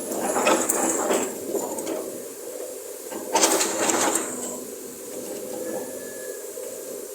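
Sumitomo SH210 hydraulic excavator running, its engine a steady hum under two harsh bursts of hiss and metallic noise, one in the first second and one about three and a half seconds in.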